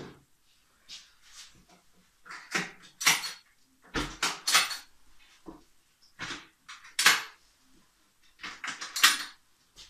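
Wooden cart drawers sliding and knocking, with tools and parts clattering as they are packed into it, in a string of irregular knocks and rattles.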